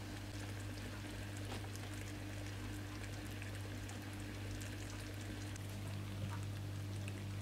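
Sugar syrup boiling in a saucepan, a steady crackle of many small bubbles popping, over a steady low hum. The syrup is simmering until it darkens, the stage before baking soda goes in to make honeycomb.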